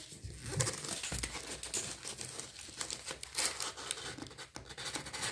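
Cardboard parcel being opened by hand: packing tape tearing and the cardboard crinkling and scraping, in an irregular run of rustles and clicks.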